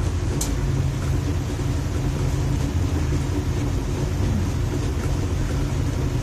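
Steady low hum of an electric motor running, with one short click about half a second in.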